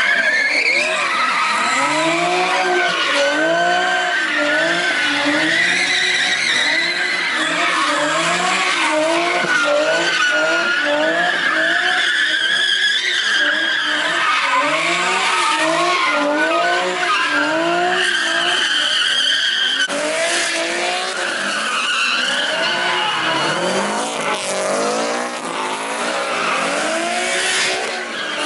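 Car engine revving up and down over and over, roughly once a second, while its tyres squeal continuously as it spins in a street-takeover stunt.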